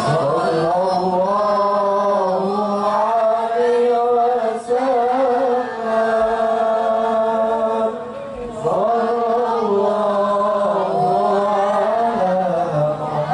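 A young man's solo voice chanting into a microphone in long, ornamented held phrases that bend up and down in pitch, with a few short breaks for breath.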